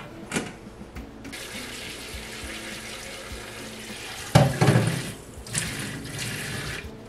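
Kitchen tap running into a stainless-steel sink while a round metal cake pan is rinsed under it, with a loud clatter of the pan in the sink about four seconds in. A single knock comes just before the water starts.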